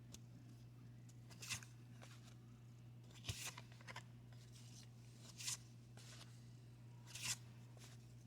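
Trading cards handled one at a time: five short, papery swishes spaced about one to two seconds apart as cards slide off the stack.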